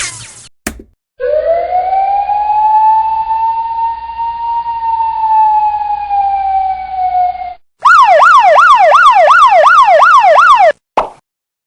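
Recorded siren sound effect: one slow wail that rises and then sinks over about six seconds, then after a brief break a fast yelp sweeping up and down about three times a second for about three seconds. Short unrelated effects sound briefly at the start and near the end.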